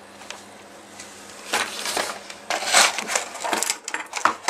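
Handling noise on an electronics workbench: irregular rustling and knocking as things are moved about. It begins about a second and a half in, with the loudest burst near the middle.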